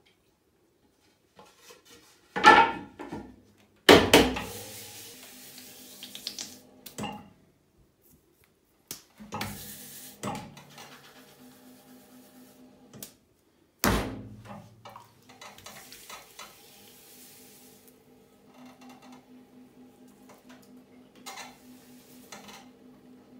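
Several loud knocks of clay and studio objects, then a ball of clay slapped down onto a potter's wheel head about two-thirds of the way through. The wheel then turns with a steady low hum and a regular rhythmic pulse as the clay is pressed down to be centred.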